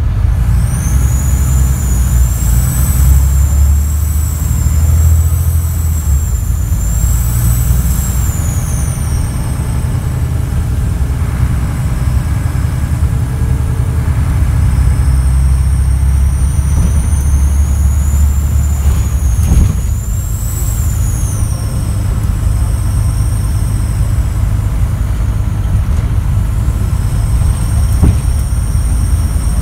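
The Scania N94UD bus's 9-litre DC9 inline-six diesel pulls with a heavy rumble, heard on board. Over it a loud, high turbo whistle rises and falls with the revs; it is the sign of a leaking turbo. The whistle fades at about nine seconds, comes back, and holds steady near the end, with a single sharp knock about two-thirds of the way through.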